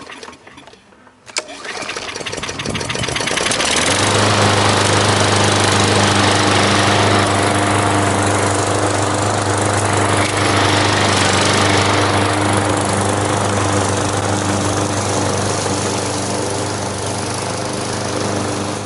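Petrol lawn mower engine starting: it catches about a second and a half in, speeds up, and settles into a steady run by about four seconds. It is running again after its carburetor was cleaned with spray cleaner, having failed to start after sitting all winter.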